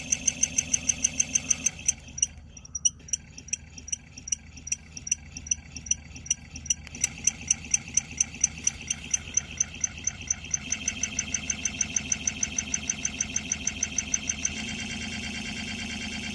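MotorGuide Xi5 electric trolling motor running with its propeller off, an electric whine and hum with a rhythmic knocking several times a second; about two seconds before the end the knocking stops, leaving a steady hum. The owner traced the noise to a smashed magnet inside the motor housing.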